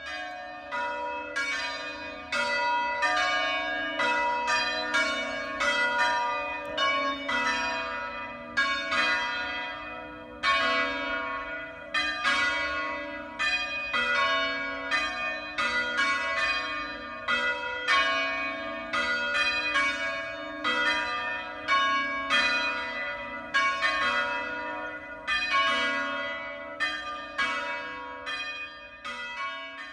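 Church bells ringing in a continuous peal, about one or two strokes a second, each stroke ringing on over a steady hum.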